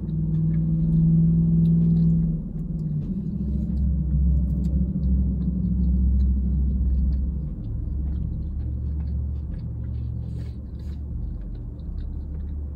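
A vehicle engine rumbling low, heard from inside a parked car's cabin. It is loudest over the first seven seconds or so, then eases off. Faint clicks of chewing sit above it.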